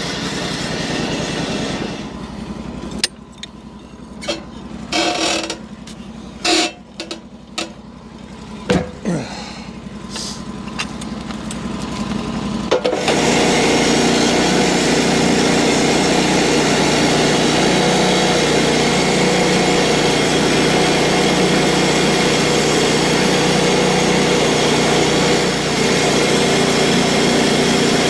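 Small gasoline engine of a band sawmill: running steadily, then quieter for about ten seconds with scattered knocks and clicks, then about thirteen seconds in it jumps suddenly to a louder, steady run that holds on.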